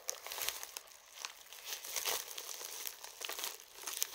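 Plastic mailing bag crinkling and rustling as it is handled, in short irregular crackles.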